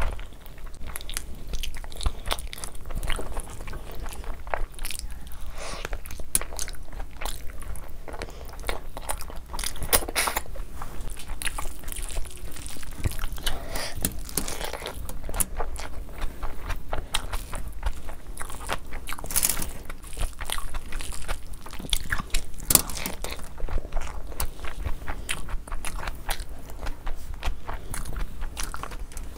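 Close-miked chewing and wet mouth sounds of someone eating mutton curry and vegetable pulao by hand, with a steady run of lip smacks and small clicks.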